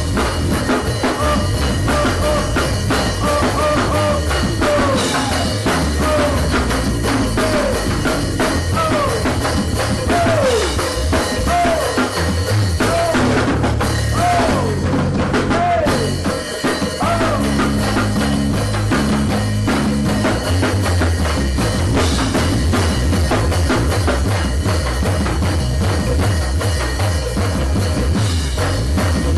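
Live band music: drum kit and bass keep a steady groove under a lead melody that slides up and down in pitch.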